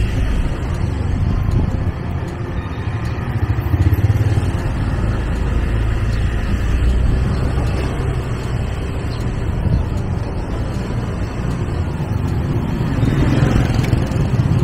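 Small motorbike engine running steadily while riding along, with road and wind noise.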